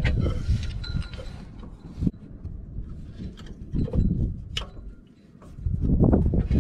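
Scattered clicks and light metallic clinks as a one-handed bar clamp is worked against a machine's belt pulleys and steel frame, with a low rumble at the start and again from about six seconds on.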